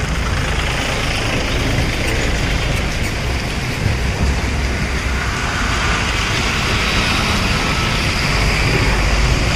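Motorcycles riding through a flooded street: engines running and tyres swishing through standing water, over a heavy low rumble.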